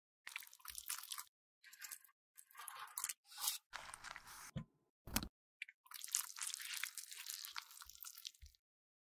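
Crisp crunching and squishing from crushed waxy lipstick being worked, in short bursts broken by abrupt dead-silent gaps.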